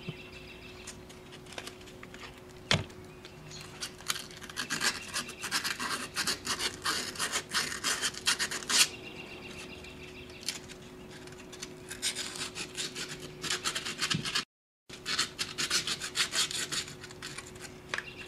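Sandpaper rubbed back and forth by hand over the rusty face of a brake master cylinder, scouring off surface rust. It comes in runs of quick scratchy strokes with short pauses, and there is one sharp click about three seconds in.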